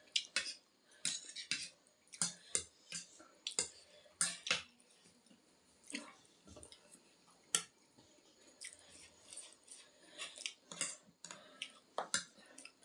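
Close-up eating of spicy ramen noodles: irregular wet slurps and chewing, with now and then a utensil clicking against the bowl.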